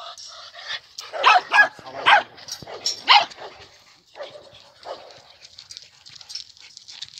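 Dogs barking: four loud, short barks between about one and three seconds in, then a few fainter ones.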